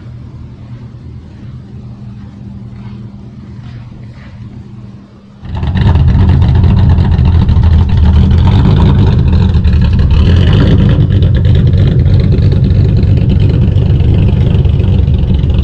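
Classic Ford Mustang's engine: a steady low hum for about five seconds, then the engine comes in suddenly and loudly and keeps running hard as the car pulls away.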